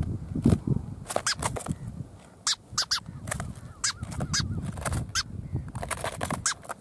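Short, sharp bird calls in an irregular series, some dipping in pitch, over the low rustling of a bird being handled.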